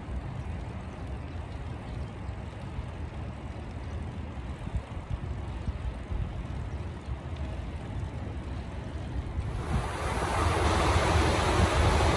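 Wind rushing over the microphone of a moving bicycle, with a steady low rumble. About ten seconds in, a louder, brighter rushing noise swells up and holds.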